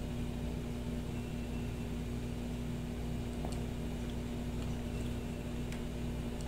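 Steady mechanical hum of a running room appliance, with one constant tone over a low rumble, and a couple of faint light clicks midway.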